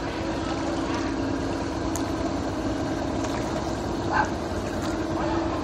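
Small boat's motor running with a steady drone, along with water and wind noise. A brief, sharper sound stands out about four seconds in.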